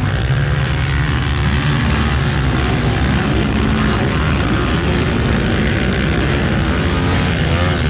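A pack of motocross dirt bikes racing, their engines buzzing and revving together, with pitch gliding up and down as bikes pass.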